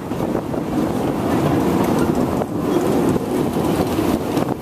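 Narrow-gauge train carriage running along the track: a steady rumble of wheels and carriage, mixed with wind buffeting the microphone.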